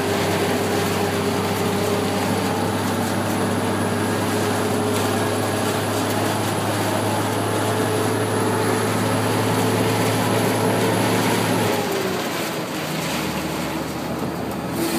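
Heavy rain hissing steadily over the running engine and road noise of a vehicle driving in the downpour; about twelve seconds in the engine note drops and the sound eases a little.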